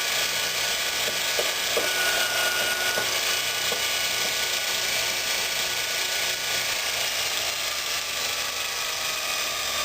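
Bench grinder driving a Multitool belt grinding attachment, running steadily with the abrasive belt spinning, and a few light taps on the attachment in the first four seconds to shift the belt's tracking.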